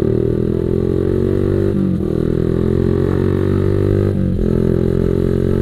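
Motorcycle engine pulling under way, its pitch climbing and then dropping back twice, about two and about four seconds in, as the rider shifts up through the gears.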